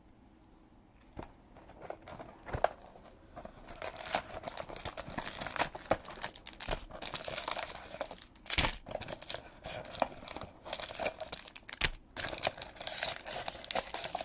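Foil Pokémon booster packs and packaging crinkling and rustling as they are pulled out of a cardboard box, with light taps and clicks against the box. There are only a few clicks for the first few seconds, then almost continuous crinkling.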